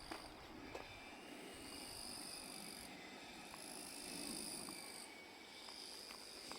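Insects singing: high, steady trills that come and go in phrases of a second or two, two pitches taking turns, over a faint low rumble.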